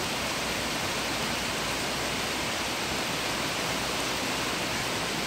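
Heavy thunderstorm rain falling in a steady downpour.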